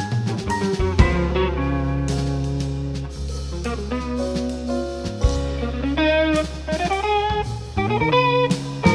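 Live jazz band of piano, saxophone, electric guitar, bass and drums playing a jazz waltz, with the electric guitar carrying a melodic line over the bass and drums and a rising run near the end.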